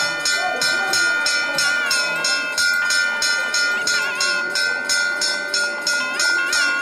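Temple bell rung rapidly and without pause, about four or five strokes a second, its ringing tones held steady under the strikes, with crowd voices mixed in.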